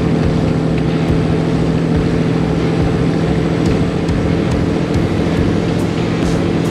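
Cabover semi truck's diesel engine running steadily at road speed under a heavy trailer load, heard inside the cab with road and tyre rumble.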